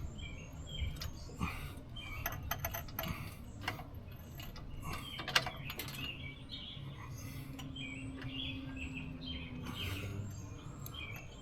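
Small birds chirping now and then, over scattered light clicks and knocks, with one sharper knock about halfway through.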